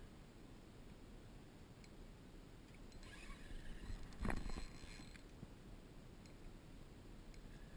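Low, steady rumble of wind and water around a small boat, with a short knock and rustle about four seconds in.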